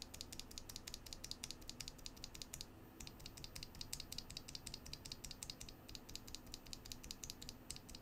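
Loose FEI Plus mechanical keyboard switches, lubed and then lubed and filmed, pressed quickly over and over between the fingers: a fast, even run of light plastic clicks, with a short pause about three seconds in.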